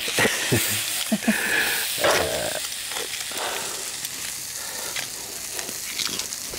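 Chicken pieces and bell peppers sizzling steadily in a frying pan over a gas burner. A few short knocks and clicks come in the first couple of seconds as the pan is handled.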